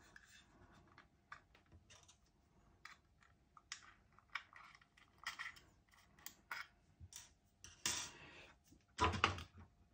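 Faint, irregular clicks and taps from handling a Chord Mojo DAC and a small hex key while its tiny hex screws are removed and set down on a table. A louder cluster of clicks comes near the end.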